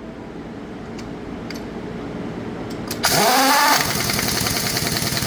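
A truck engine starting about three seconds in: a sudden rise in pitch as it fires and catches, then running loudly and steadily. Before that, a low rumble with a few faint clicks.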